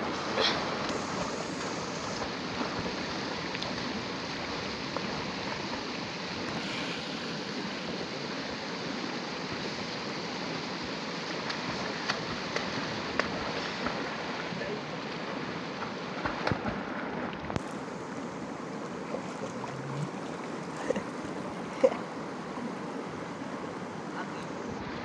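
Steady rush of flowing river water, with a few short sharp sounds scattered through it.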